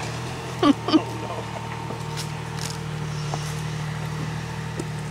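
Off-road SUV's engine running steadily at low revs as it crawls over boulders, picking up slightly about two seconds in. About a second in, two short high squeals sliding down in pitch stand out as the loudest sounds.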